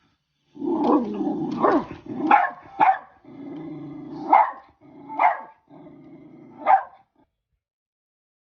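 A dog growling and barking: a low steady growl with about seven sharp barks breaking through it, falling silent about seven seconds in.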